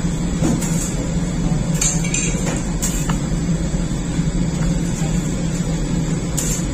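Steady hum of a revolving bakery deck oven running, with a few sharp metal clinks and taps scattered through it.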